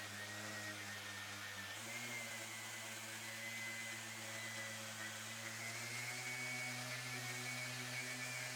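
Electric sander running steadily while sanding back dyed wood, a motor hum with a light hiss; its pitch steps up slightly about two seconds in.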